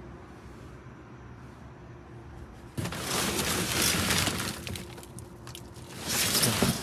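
Construction debris in a dumpster, broken drywall and plastic scraps, being disturbed: two sudden spells of crunching, rattling noise, the first about three seconds in and lasting a couple of seconds, the second shorter near the end. A steady low hum runs underneath.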